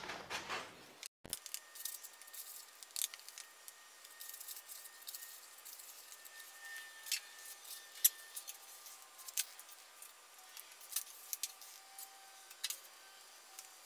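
Plastic body-filler spreader scraping and tapping against a mixing board while working metal glaze, then spreading it onto the car's steel quarter panel: faint, scattered scrapes and sharp clicks.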